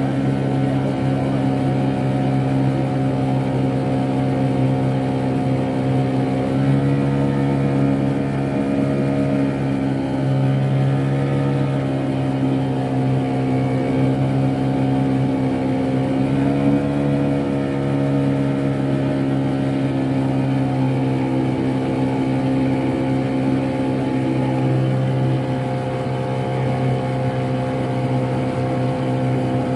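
Fishing boat's engine running steadily, its pitch shifting up slightly about seven seconds in and again briefly around seventeen seconds.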